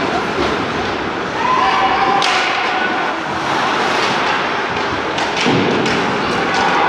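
Youth ice hockey game sounds in a rink: thuds and knocks against the boards over a steady din of skates and spectators.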